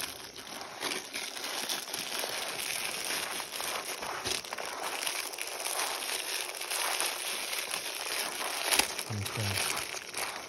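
Dry crushed instant noodles and fried peas being tossed and mixed by hand on a banana leaf: a steady crackling, rustling crunch, with plastic packaging crinkling.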